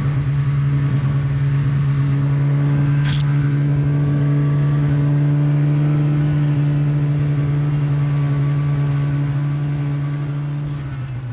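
Snowmobile engine running at a steady speed, a constant drone that eases off near the end, with a single sharp click about three seconds in.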